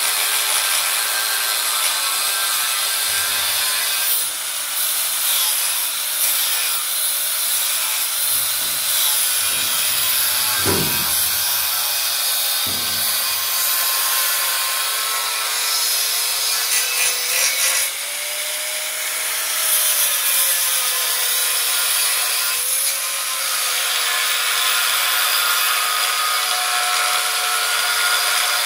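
Angle grinder with a thin disc grinding the steel fingers of a harvester auger, a steady whine over a hiss of metal grinding. The motor's pitch sags and recovers as the disc bites in and eases off, with a couple of low knocks about halfway through.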